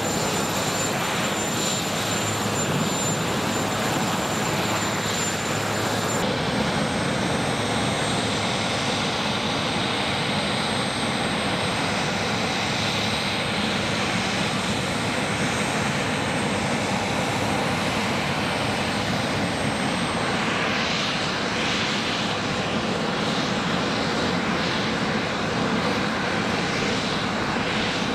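Aircraft turbine engines running steadily: an even rush of noise with a thin, high whine above it.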